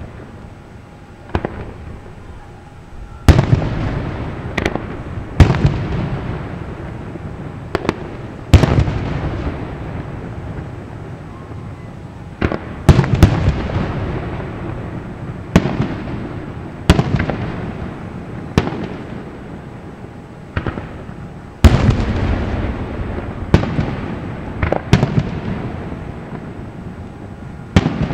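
Aerial fireworks shells bursting one after another at irregular intervals, a sharp bang every one to three seconds. Each bang is followed by a long fading echo.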